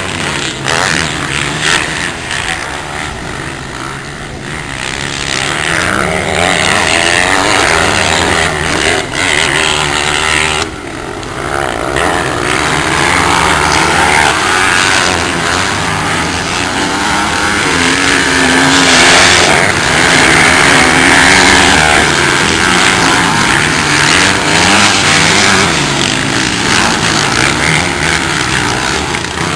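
Several motocross dirt bikes racing, their engines revving up and down as they accelerate out of turns and over jumps, the pitches of different bikes overlapping and gliding. The engines are louder in the second half.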